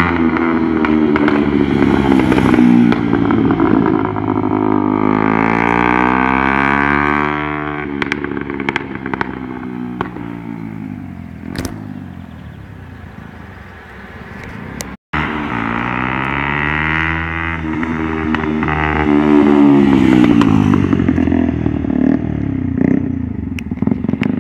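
Motorcycle with a Leovince aftermarket exhaust riding past, its engine note rising and falling as it revs, then fading into the distance. After a short break it comes by again, loudest about two-thirds of the way through.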